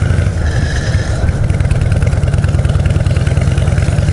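Harley-Davidson Shovelhead V-twin running steadily under way, its exhaust an even, rapid pulsing.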